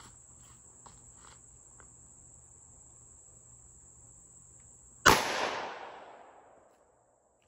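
Crickets chirping steadily with a few faint clicks, then about five seconds in a single loud shot from a 5.7×28 mm firearm, its echo dying away over about two seconds.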